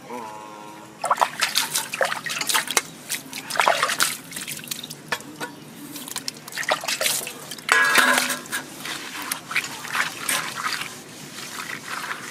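Water splashing and trickling as small fish are washed by hand on a wet stone slab, with water poured over them from a steel bowl. Short irregular splashes and wet slaps come throughout.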